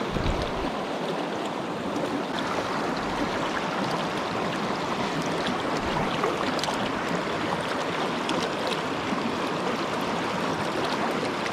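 Mountain river current rushing steadily, an even wash of flowing water.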